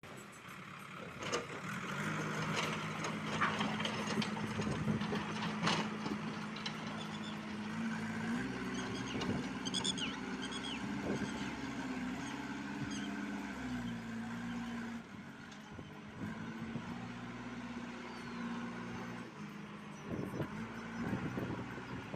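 JCB 3DX backhoe loader's diesel engine running under load as the front bucket pushes loose soil. The engine note steps up about eight seconds in and drops back about six seconds later, with a few sharp clanks in the first six seconds.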